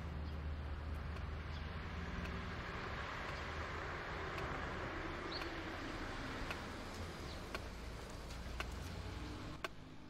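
Steady outdoor background noise with a low rumble, a brief high chirp about five seconds in, and a few light clicks, about one a second, near the end.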